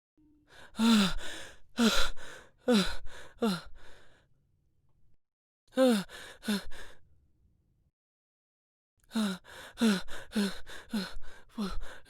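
A person panting heavily, out of breath as if from running: quick voiced 'hah' gasps, each dropping in pitch, come in three runs of several breaths with short pauses between them.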